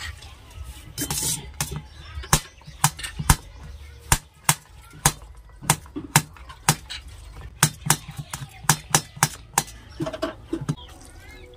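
Kitchen knife chopping fresh coconut flesh into small pieces on a steel plate: sharp clicks of the blade striking the metal plate, about two a second, with a short scrape about a second in.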